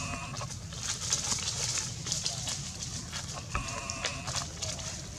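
Monkey cries, a high held tone with overtones, once ending just after the start and again about three and a half seconds in, over faint crackling of dry leaves underfoot.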